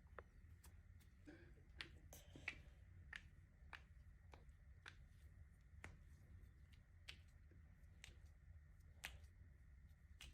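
Near silence, with faint sharp clicks at an even pace of a little under two a second over a low steady hum.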